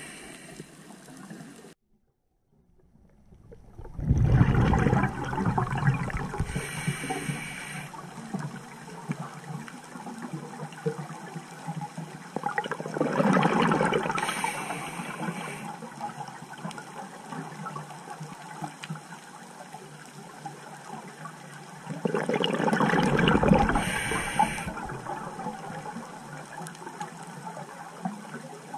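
Scuba diver breathing through a regulator underwater: exhaled bubbles gurgle out in three surges about nine seconds apart. Each surge is followed by a short hiss as the diver inhales.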